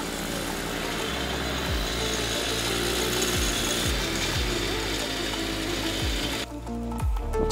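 Motorcycle engine from a Honda CD Dawn, a single-cylinder four-stroke fitted with a silencer and rigged as a long-tail outboard on a canoe, running steadily at speed and driving the boat, with music with a steady beat playing over it. The engine sound cuts off about six and a half seconds in, leaving only the music.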